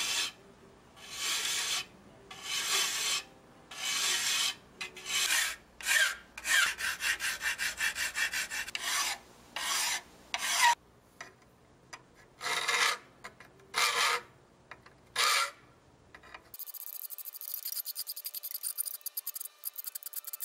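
Hand file rasping across the edge of a metal spatula blade clamped in a vise: a dozen or so separate push strokes, roughly one a second, some with a chattering judder. About three-quarters of the way in the strokes stop and a lighter, rapid fine scraping follows.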